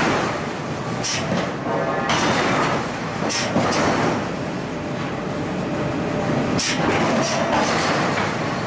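Steady, loud machinery din of a forging shop with irregular sharp metal clanks, as a red-hot steel block is gripped with tongs on the anvil of a power hammer. The clanks come unevenly, several close together near the end.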